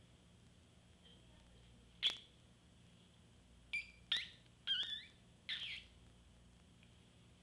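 Kitten mewing: a series of short, high calls, the loudest about two seconds in, then four or five more in quick succession.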